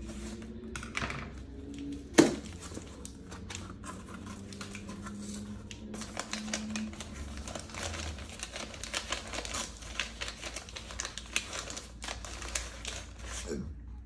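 Scissors cutting through a small corrugated cardboard box, with one sharp loud snap about two seconds in. Then the cardboard flaps are folded back and kraft-paper wrapping crinkles and rustles in quick clicky bursts as a wrapped package is pulled out.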